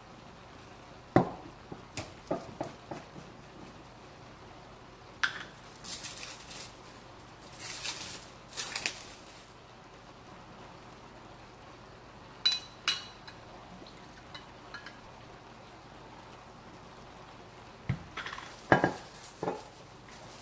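Dishes and cutlery clinking and knocking in scattered short bursts, loudest about a second in and again near the end, with a few brief hissy noises in between over a faint steady low hum.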